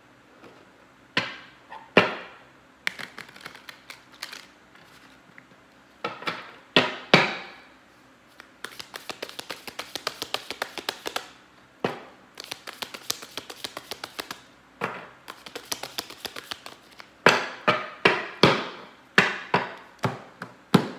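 A deck of tarot cards being shuffled by hand: runs of rapid fluttering clicks as the cards slide and slap together, broken by sharp single taps and knocks, with a quick series of louder taps near the end.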